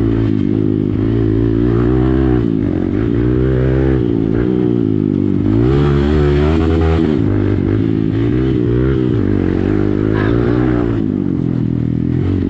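Hero Xpulse single-cylinder motorcycle running through an Akrapovic exhaust while being ridden. The engine note rises and falls several times with the throttle, climbing highest about six to seven seconds in before dropping back.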